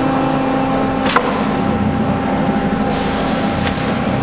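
Pines AD 35 CNC hydraulic tube bender running through its bend cycle: a steady hum from the hydraulic power unit, a sharp click about a second in, and a higher hiss joining after about three seconds as the pressure die closes and the mandrel retracts.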